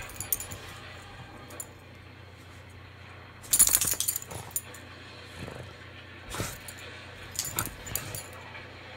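A dog and a cat play-fighting on a bed: low scuffling with a few short, sharp bursts of sound from the dog, the loudest about three and a half seconds in.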